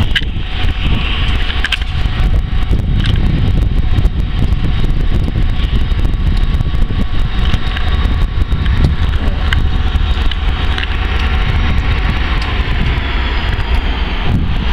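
Class 59 diesel locomotive's engine rumbling steadily as it hauls a loaded stone train of wagons slowly towards the station, with wheel and rail noise mixed in.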